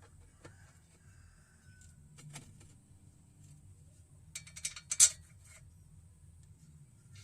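Quick run of small metallic clicks, then one sharp metal clank about five seconds in: hand tools or suspension parts being handled and set down.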